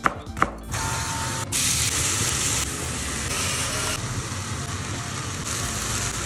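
A kitchen knife chopping on a plastic cutting board, two sharp strokes, then from under a second in a steady sizzle of minced meat and diced vegetables frying in a pan.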